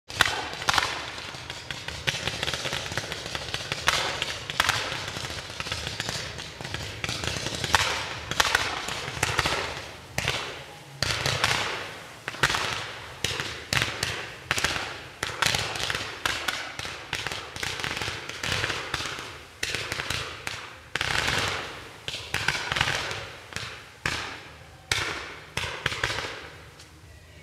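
Fireworks display: firework mines and coloured stars firing in a rapid series of sharp shots, each fading away. The shots come close together at first, then settle to about one a second.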